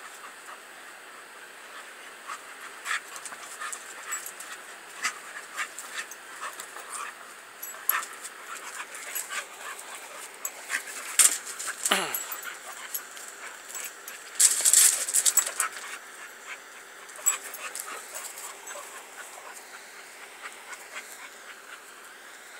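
Dogs moving about and panting close by, with many short clicks and rustles. About twelve seconds in there is one brief whine falling in pitch, and a little later a short noisy scuffle.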